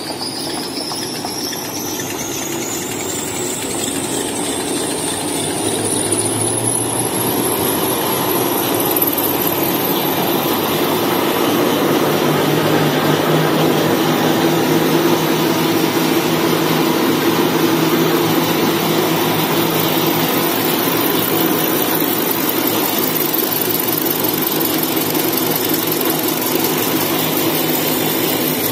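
XY-TQ-G semiautomatic maxi-roll slitting and rewinding machine running, paper web feeding through its rollers: a steady mechanical din with a high whine. The whine climbs over the first ten seconds or so as the machine picks up speed, growing louder, then holds steady.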